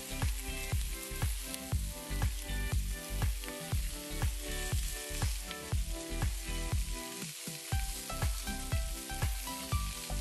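Chicken wings sizzling as they sear in hot oil in a wok, a steady hiss. Background music with a steady beat plays over it.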